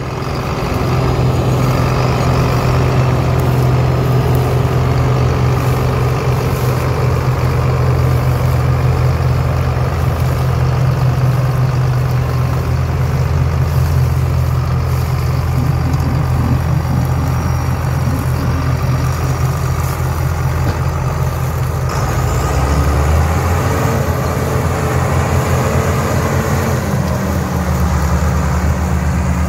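Diesel engine of a John Deere 7000-series tractor running steadily as it pulls a grain trailer across wheat stubble. The engine note shifts about 22 seconds in, with a faint high whine rising and falling, and changes again near the end.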